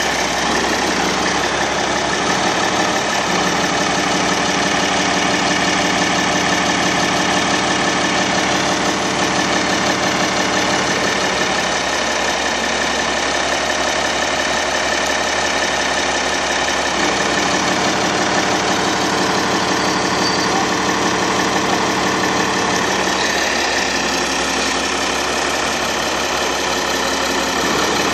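An engine running steadily at an even speed, a constant hum that holds without change.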